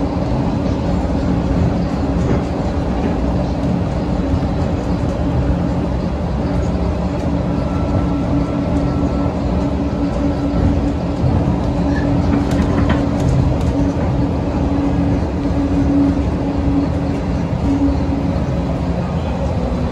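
Airport ramp noise from jet aircraft: a steady low roar with a constant droning hum.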